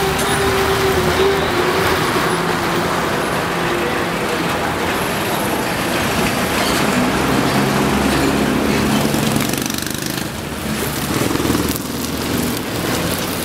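Street traffic noise with a motor vehicle's engine running close by, steady and fairly loud, easing off slightly near the end.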